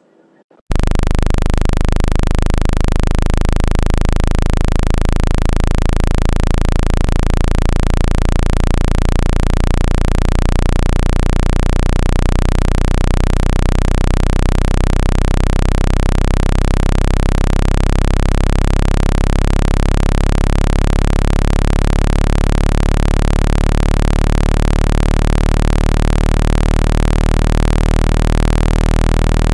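Synthesized speaker-cleaning tone, a loud, steady deep tone mixed with hiss, starting about half a second in and pulsing slightly in level. It is meant to be played at full volume to shake water and dust out of a phone speaker.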